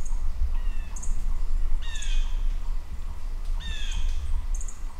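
A bird calls three times in short, harsh, falling notes, with a few brief high chirps between, over a steady low rumble.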